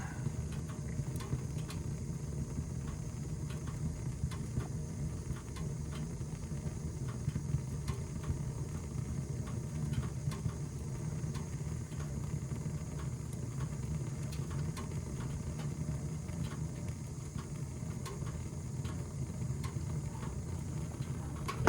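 Old Tappan gas furnace firing: a steady low rumble from the burner flames, with faint scattered ticks as the furnace heats up.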